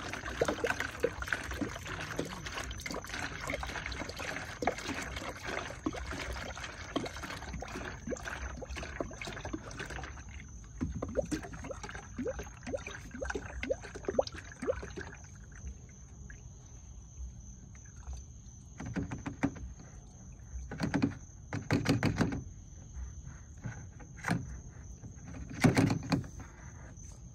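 Mopar antifreeze/coolant concentrate being poured through a plastic funnel into a plastic jug, a steady splashing stream for about fifteen seconds. Then it goes quieter, with a few short bumps as the funnel and jug are handled.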